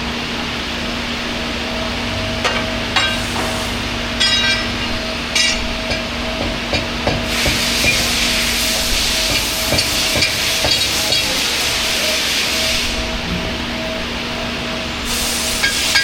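Machine-shop sounds: a running machine's steady hum throughout, with sharp metal clinks about three to five seconds in. A steady hiss begins about seven seconds in and lasts about six seconds, and more clinks come near the end.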